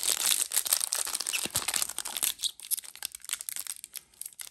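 Foil booster pack wrapper crinkling and crackling in the hands as it is torn open, busiest in the first two seconds and thinning out in the second half.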